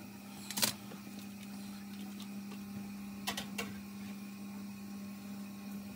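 Steady low hum throughout, with a sharp knock about half a second in and two quick lighter knocks about three seconds later as a metal box grater and a block of cheese are handled and set down on a kitchen worktop.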